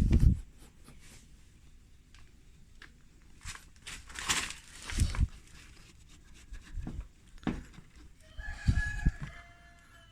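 A rooster crowing near the end: one long call that drops in pitch as it ends. Before it come scattered knocks and scraping sounds.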